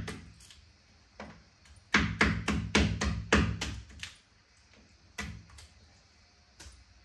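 Knife chopping through chicken pieces on a cutting board: single chops, then a quick run of about eight strokes at roughly four a second, then a few more single chops.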